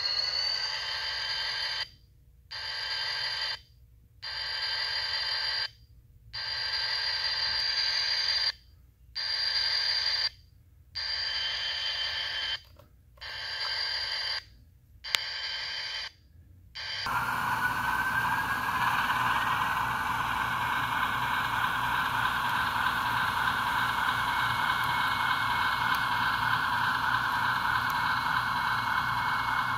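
Model diesel locomotive's sound decoder: a steady electronic tone that cuts out and back in about eight times, then a diesel engine sound starting about seventeen seconds in with a rising whine and running on steadily.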